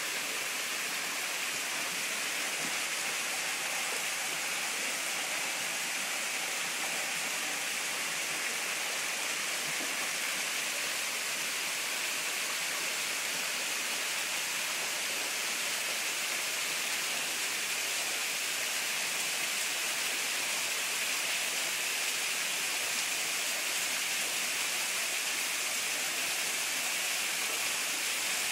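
Small waterfall pouring down a rock face into a pool, a steady rushing splash of falling water.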